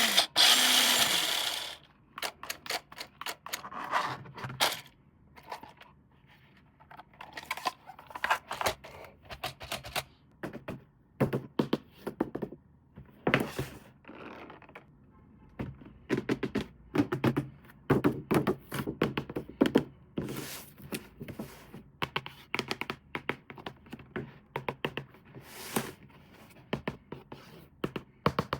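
A small motor whirring with a steady hum cuts off about a second and a half in, followed by a long irregular run of light clicks, taps and knocks of hard plastic toy parts being handled.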